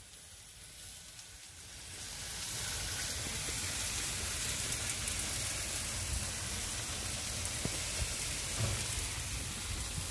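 Shish tawook chicken skewers sizzling on foil on an electric table grill: a steady, even hiss that fades in over the first two seconds, with a low rumble underneath.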